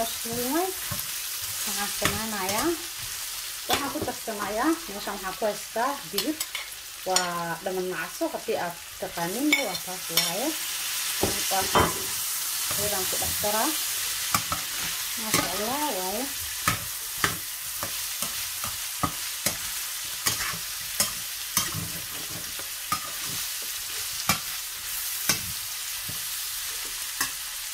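Diced chicken and green beans sizzling in a stainless steel frying pan while a slotted spatula stirs them, with frequent clicks and scrapes of the utensil against the pan.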